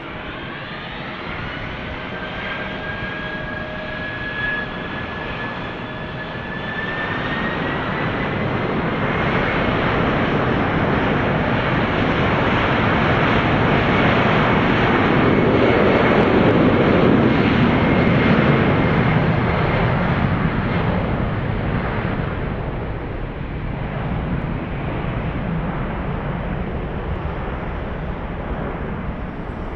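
Boeing 747 freighter's four jet engines spooling up with a rising whine, which climbs again about seven seconds in. Under it a loud rumble builds to a peak around the middle and then eases off as the jet rolls down the runway.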